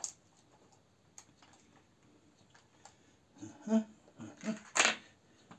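Small fishing tackle clicking and rattling as a hand rummages through a tackle box: scattered faint clicks, then a run of louder knocks in the last two seconds, the loudest a sharp clack.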